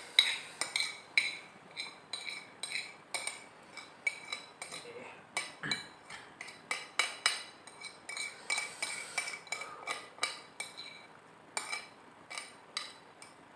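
Metal cutlery clinking and scraping against a plate in many quick, irregular clicks, each with a short bright ring, as rice is scooped up.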